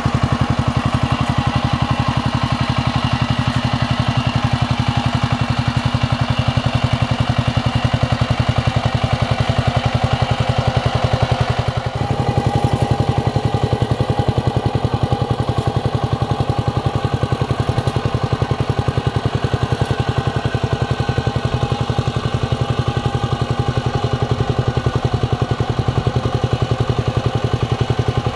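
Kamco power tiller's single-cylinder diesel engine running steadily under load as it churns through a flooded rice paddy, with a fast, even chug. The sound changes abruptly about twelve seconds in.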